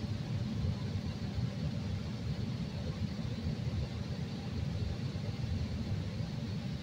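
Interior sound of a CTA Red Line rapid-transit car running along the track: a steady low rumble with a faint hiss above it.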